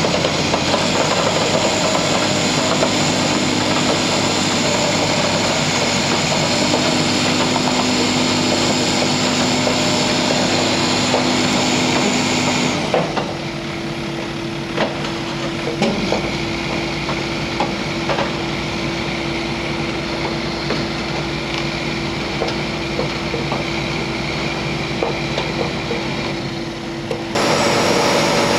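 Heavy diesel engine of a crawler-mounted earth drill running steadily, with scraping and clanking noise from the machine. About halfway through the sound turns abruptly quieter and duller with scattered clicks, then jumps back to full loudness near the end.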